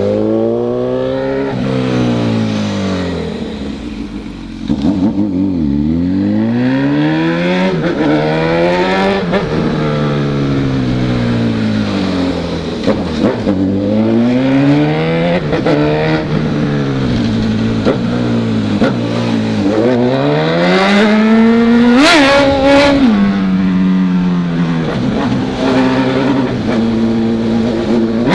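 Honda CB1000 motorcycle's inline-four engine revving up and easing off again and again as the bike accelerates and slows, its pitch rising and falling in repeated sweeps. Its highest, loudest rev comes about three quarters of the way through.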